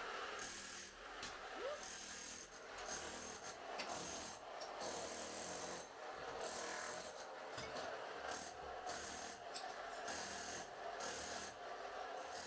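Power demolition hammer chiselling tile and plaster off a bathroom wall in repeated short bursts, with a grinding, rasping scrape.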